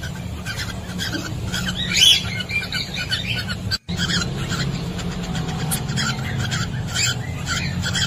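Cockatiels making repeated short chirping calls over a steady low electrical hum. The sound cuts out completely for a moment just before halfway.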